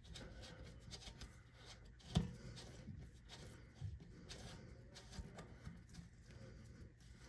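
Faint rubbing and small clicks of fingers hand-tightening the plastic coupling nut of a toilet water supply line onto the tank's fill-valve shank, with one sharper knock about two seconds in.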